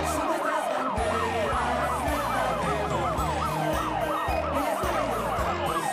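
A siren wailing in quick falling sweeps, about four a second, over music with bass and a beat.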